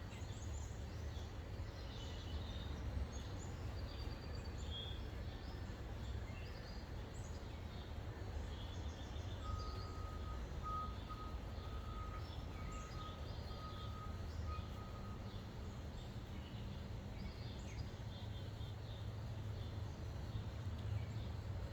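A heavy vehicle's reversing beeper sounding a run of steady single-pitched beeps for about six seconds midway, over a steady low engine rumble. Birds chirp throughout.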